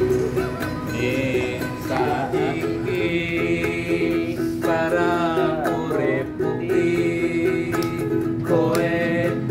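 Ukulele strummed steadily as accompaniment to a voice singing a slow melody with long, wavering held notes that come in a couple of seconds in.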